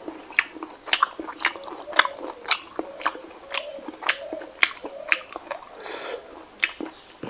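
A person chewing fried pork belly with loud mouth-smacking: sharp clicks come about twice a second.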